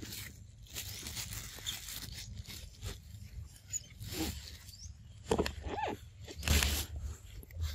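Grass and leaves rustling and crunching in short scuffs as the monkeys shift about and are handed food. About five to six seconds in there are a couple of brief high squeaks.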